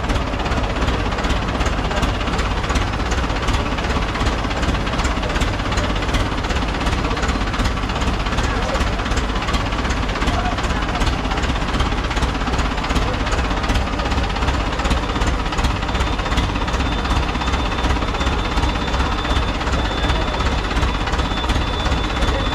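Loud, unbroken din of a street procession: many voices over a running vehicle engine, with a rapid pounding going on throughout.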